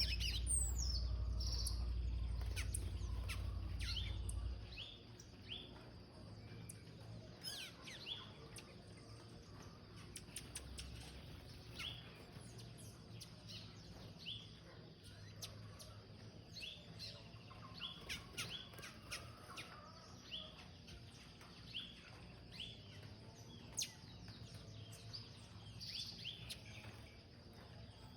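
A small bird chirping repeatedly, short high chirps about once a second. A low rumble underlies the first few seconds, then stops.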